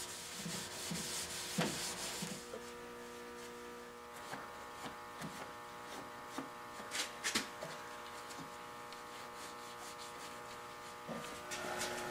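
A pad rubbing satin tung oil into a wooden chair seat, a few quick rubbing strokes in the first two seconds. After that a steady faint hum, with a few light taps.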